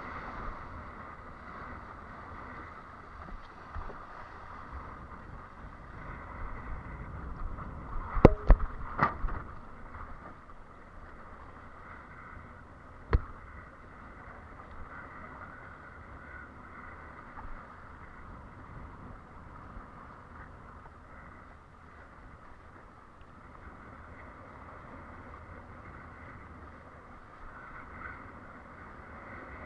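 Steady rush of water and wind noise while windsurfing, broken by a quick cluster of sharp knocks about eight seconds in and a single knock about five seconds later.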